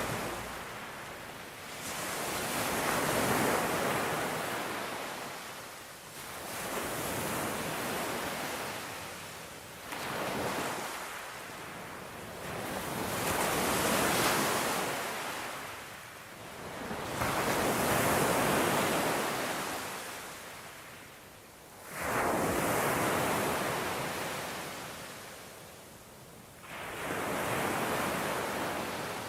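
Sea waves breaking and washing onto the shore, the surf rising and falling away about eight times, every three to five seconds, one wave coming in more suddenly about three-quarters of the way through.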